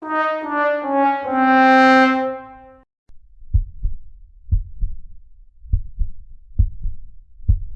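A 'sad trombone' brass sting: four descending notes, the last one held, the comic 'wah-wah-wah-waaah' letdown after a punchline. After it, low dull thuds come about once a second.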